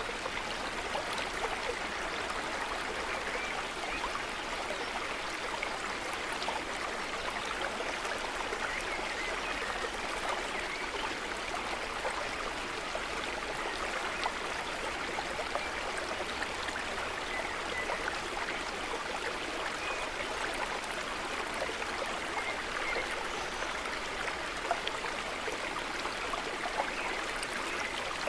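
A stream flowing, a steady rush of running water with no breaks.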